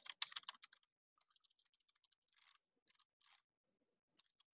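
Computer keyboard typing: a quick run of keystrokes in the first second, then a few faint single key taps.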